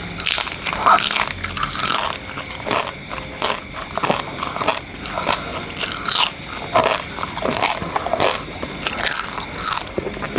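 A person chewing and biting food close to the microphone, with irregular crunchy, crackly mouth sounds.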